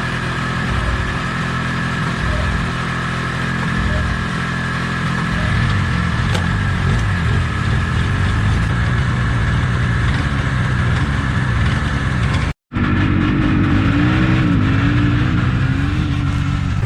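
2003 Polaris Indy 600 snowmobile's two-stroke engine running under way, rising and falling in pitch with the throttle. The sound breaks off for a moment about three-quarters of the way through, then resumes.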